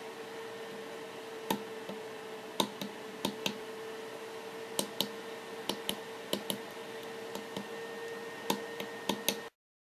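Small tactile pushbuttons on a Freetronics LCD keypad shield clicking as they are pressed and released, about twenty clicks at an uneven pace, over a steady faint hum. The sound cuts off suddenly near the end.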